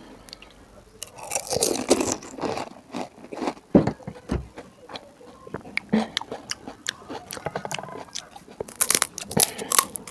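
Close-miked crunching and chewing of crisp, hollow pani puri shells: irregular sharp crackles with louder bursts of crunching about a second and a half in and again near the end.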